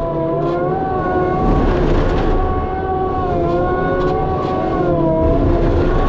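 Skid steer engine and hydraulics running a Harley rake under load, a steady rumble with a whine whose pitch dips and rises as the load changes, and brief crackles from debris.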